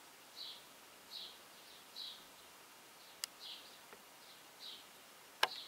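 Faint high-pitched chirping, one short chirp about every three-quarters of a second, with a sharp click about three seconds in and a louder click near the end.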